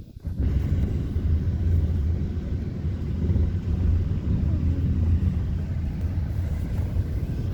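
A vehicle running, heard as a loud, steady low rumble that starts suddenly about half a second in.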